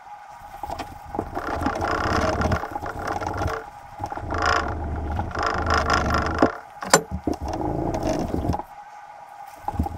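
0000 steel wool scrubbing back and forth over the steel lever of a Henry .22 lever-action rifle, in several bouts with short pauses between, and a sharp click about seven seconds in. This is carding: rubbing the boil-loosened rust off the metal after boiling it in distilled water.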